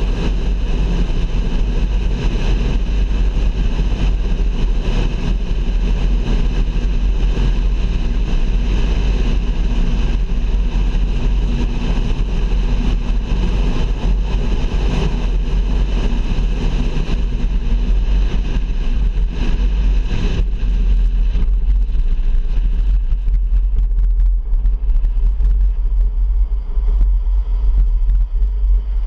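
A car driving on a highway: a steady deep rumble of road and engine noise with a broad tyre-and-wind hiss. The hiss thins out about twenty seconds in, while the low rumble carries on.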